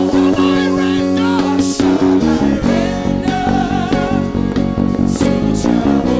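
Live gospel praise band and singers performing an upbeat worship song. The band holds chords for about two seconds, then breaks into a quick, driving rhythm under the singing.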